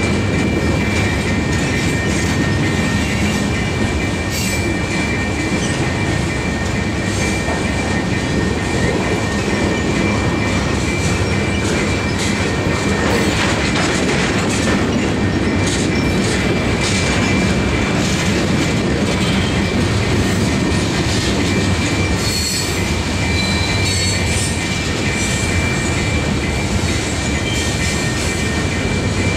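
Freight train cars rolling past close by: a steady rumble of steel wheels on the rails, with a thin, steady high wheel squeal and scattered clicking as the wheels cross the rail joints.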